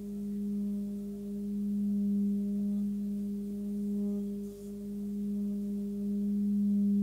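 A 20 cm Tibetan singing bowl with a fundamental of about 202 Hz, sung by rubbing a wooden stick against it. It gives one steady low hum with a fainter second tone above, swelling and ebbing in loudness, and higher overtones shimmer in now and then.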